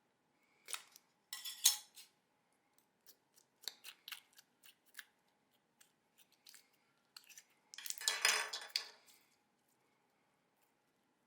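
Slime being squeezed and poked by hand, giving scattered sharp clicks and pops, with a longer crackling burst about eight seconds in.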